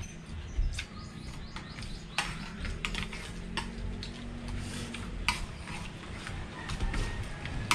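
Spoons and forks clicking and scraping against ceramic plates while people eat, in scattered light clicks at irregular intervals.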